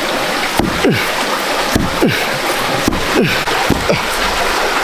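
Fast-flowing stream water rushing steadily, with repeated gurgles and splashes.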